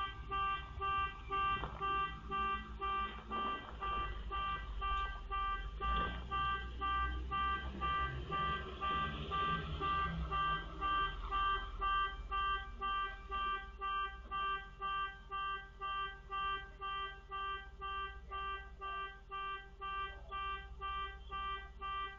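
An electronic alarm beeping steadily, about two pulses a second, at one fixed pitch.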